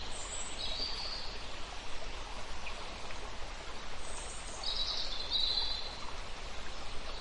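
Forest ambience: a steady rushing background with songbirds calling over it, a short call just after the start and a longer run of chirps about two-thirds of the way through.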